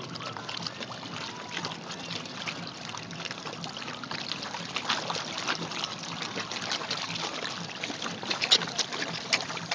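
A packed crowd of fish gaping at the water surface, their mouths sucking and slurping at air and water in a constant wet crackle of irregular pops, with a few sharper pops near the end. The fish are crowding in to beg for pellet food.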